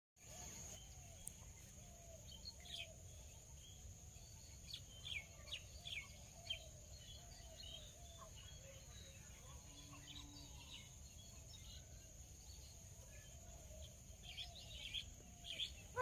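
Quiet outdoor ambience: faint, scattered bird chirps over a steady high-pitched whine, a soft lower call repeating about twice a second, and a low rumble.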